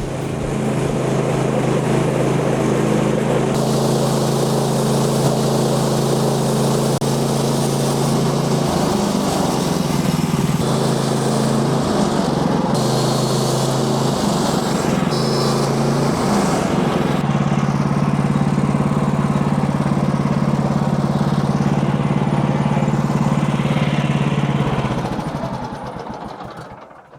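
Gasoline engine of a Woodland Mills portable bandsaw sawmill running steadily at working speed while sawing white oak. Its pitch wavers for several seconds in the middle as the blade takes load, and it dies away near the end.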